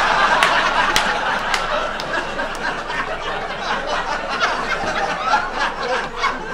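Comedy club audience laughing, with a few scattered claps. The laughter is loudest at first and slowly dies down.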